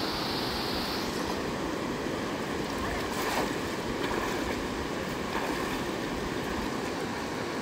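Steady rush of a river running over shallow rapids, with wind buffeting the microphone and a few sloshes of legs wading through knee-deep water.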